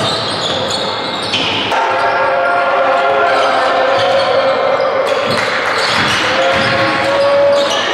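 Live basketball game sound in a gymnasium: the ball bouncing on the hardwood court amid scattered knocks, with voices calling out over the echoing hall.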